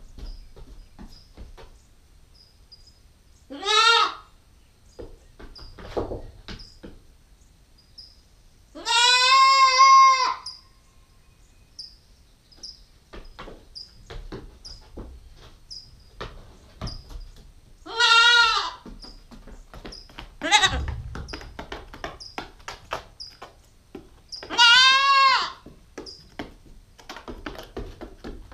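Nubian goat kid bleating loudly, four separate calls a few seconds apart, the longest about a second and a half near the middle.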